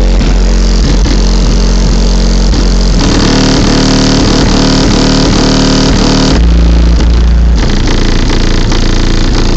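Very loud bass-heavy music from two Kicker L7 15-inch square subwoofers in a car's trunk, driven by a Kicker KX2500.1 amplifier at full power and heard from outside the car. The track changes abruptly about three seconds in and again about six seconds in.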